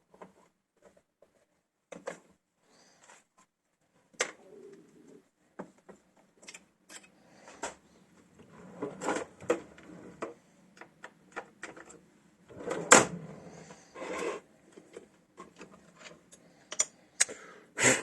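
Irregular clicks, clanks and knocks of a freshly drilled metal part and tools being handled and taken out of the setup, with the loudest knocks about thirteen seconds in and near the end.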